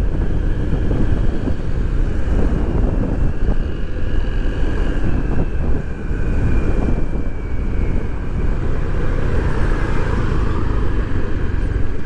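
Motorbike engine running under way, mixed with heavy wind rush on the microphone.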